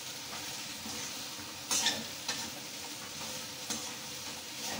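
Potato and snake gourd pieces sizzling in hot oil and masala in a metal kadai, stirred with a metal spatula: a steady frying hiss, with a scrape of the spatula against the pan about two seconds in and a lighter one near the end.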